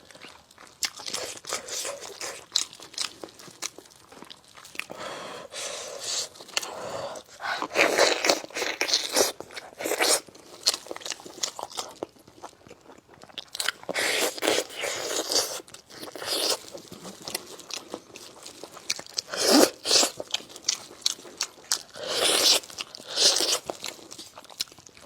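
Close-miked eating: a person biting, chewing and crunching food, with many sharp mouth clicks and several longer noisy stretches of about a second or two.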